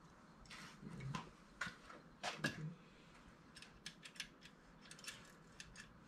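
Quiet handling noises of a small part being worked in the hands: brief rustles and a few knocks in the first half, the loudest about two and a half seconds in, then a run of small sharp clicks.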